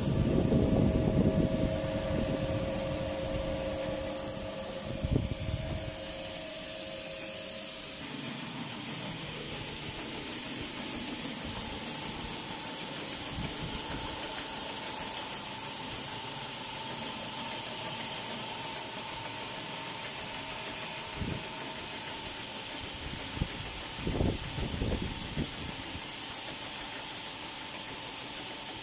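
Electric grain augers (screw conveyors) running while unloading a grain silo: a steady hiss of grain moving, with a steady machine whine whose pitch shifts up about eight seconds in, and a few low rumbles.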